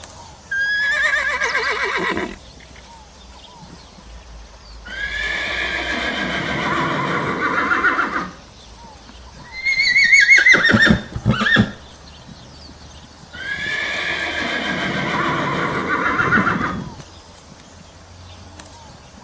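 Horse neighing four times, each whinny a long quavering call with a wavering pitch. The third is the highest and shortest and breaks off sharply at its end.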